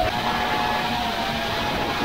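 FPV quadcopter's electric motors and propellers whining in flight, heard from the onboard camera, the pitch easing slightly lower as the throttle comes back, over a rushing noise of air.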